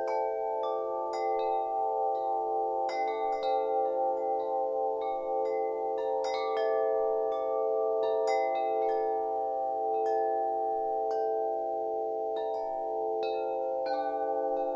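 Wind chimes ringing, struck at irregular moments by the wind, their long-ringing notes overlapping and blending into one another.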